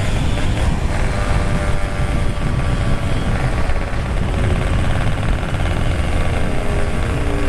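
Motorcycle running at speed, its engine note under heavy wind rumble on the rider's microphone; near the end the engine's own tone comes through more clearly.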